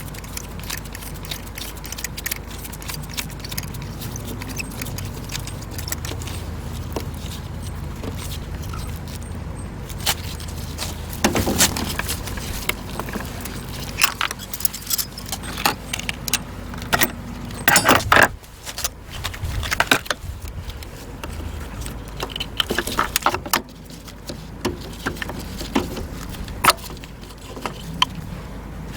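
Metal hand tools clicking and clinking during a spark plug change: many scattered sharp ticks, with a few louder ringing metallic clinks about halfway through, over a steady low hum.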